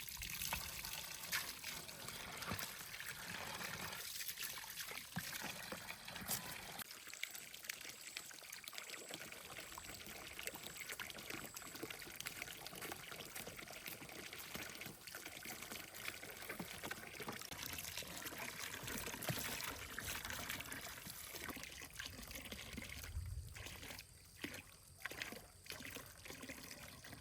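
Water trickling and pouring steadily, with a few short breaks near the end.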